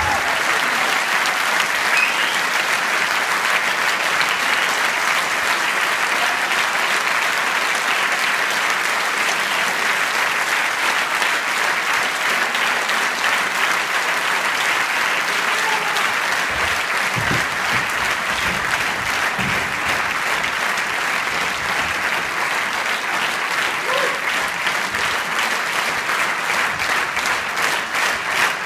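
A large theatre audience applauding steadily, many hands clapping at once; near the end the clapping begins to fall into a regular beat, about three claps a second.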